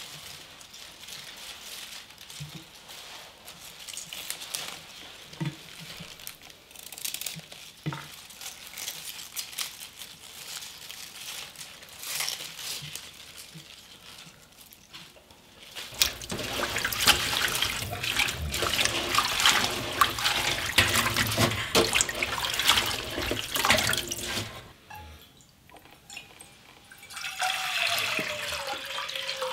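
A kitchen knife trimming spinach root ends over a plate, a few faint clicks. About halfway through, loud running tap water splashes over the spinach as it is rinsed. Near the end, water is poured from a jug into a stainless steel pot.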